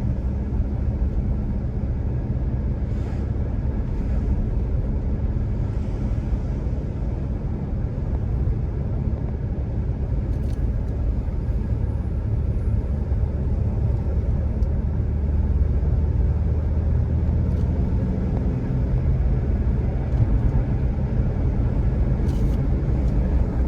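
Vehicle driving along a road, its engine and tyres making a steady low rumble.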